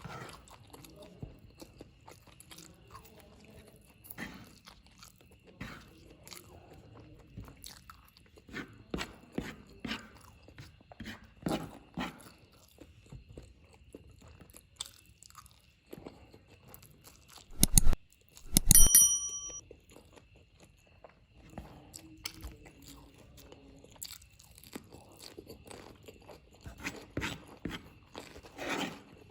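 Close-miked chewing of spicy fried noodles, with many small wet clicks and crunches. A little past halfway there are two loud knocks; the second rings briefly with a high metallic tone.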